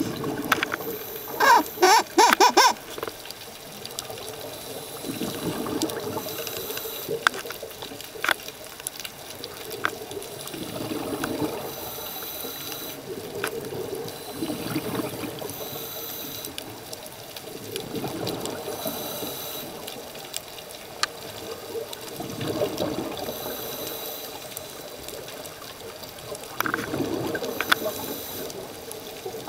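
A scuba diver's regulator breathing, heard through an underwater camera housing: a soft hiss on each inhale and a swell of exhaled bubbles roughly every four seconds. The loudest burst of bubbling comes about two seconds in.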